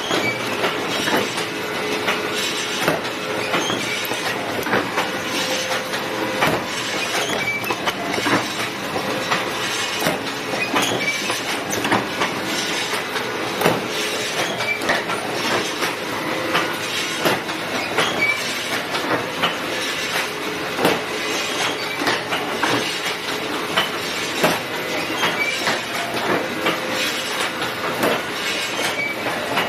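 Automatic chain rotator hook wire-forming machine running on 10 mm wire: continuous metallic clatter with sharp knocks every second or two as its slides and gears cycle.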